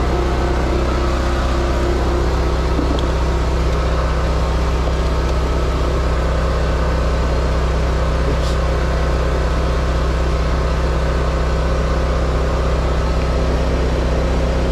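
An engine idling steadily with a low, even drone.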